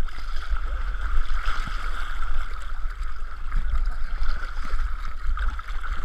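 Lake water sloshing and splashing right at the microphone as the camera is carried along at the surface by a swimmer, with a steady low rumble and small irregular splashes.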